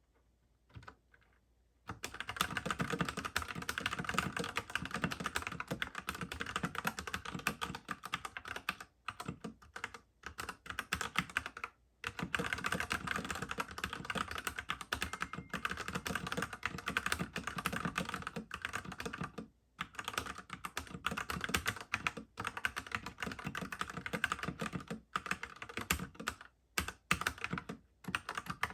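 Typing on a Whatgeek x 3inus Kebohub EE01 mechanical keyboard: a fast, continuous clatter of key clicks starting about two seconds in, broken by a few brief pauses.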